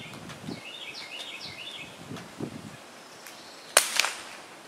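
Small birds chirping in short runs of notes, then a single gunshot crack near the end, followed a quarter second later by a second, weaker crack.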